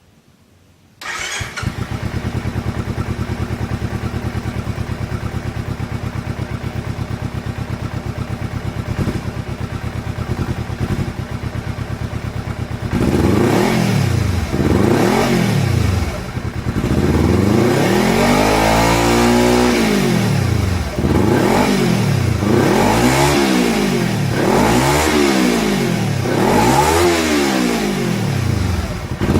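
Kawasaki Ninja 250R parallel-twin engine through an Akrapovic carbon slip-on exhaust with the dB killer fitted: it starts about a second in and idles steadily, then from about halfway it is revved in repeated quick blips, about eight, one held longer than the rest.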